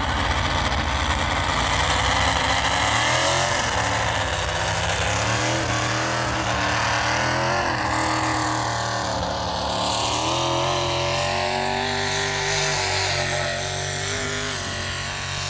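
Pulling vehicle's engine running hard under load, its pitch wavering up and down, a little quieter near the end.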